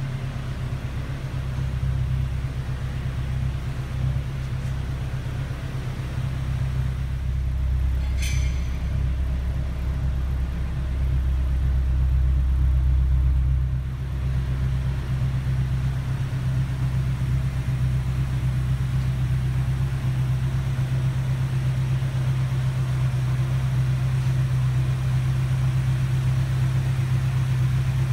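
A steady low mechanical hum, swelling a little around the middle, with one sharp click about eight seconds in.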